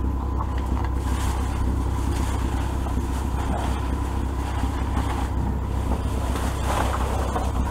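Plastic bags and bubble wrap rustling and crinkling in bursts as they are rummaged through. Under it runs a steady low mechanical drone with a thin steady whine.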